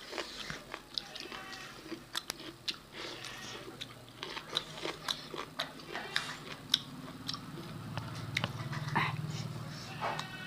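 Close-up chewing and mouth sounds of people eating rice and pork by hand, a run of short wet clicks and smacks. A low steady hum rises under them in the second half.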